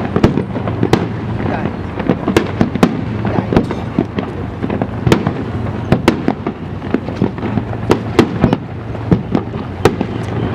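Aerial fireworks bursting in quick succession: a continuous stream of sharp bangs, several a second, over a steady low rumble.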